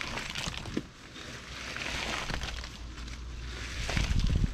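Stones and rubble scraping and clattering as they are pulled out by hand from under the sill of a log house, over a low rumble that grows louder near the end.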